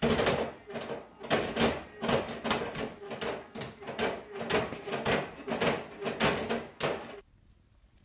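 Plastic cat flap clattering over and over as a cat shoves and paws at it, about two to three knocks a second. It stops suddenly near the end.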